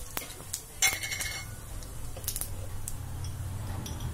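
Mustard and cumin seeds crackling in hot oil in a steel kadhai during a tadka: scattered sharp pops, with a louder cluster about a second in, over a low steady hum.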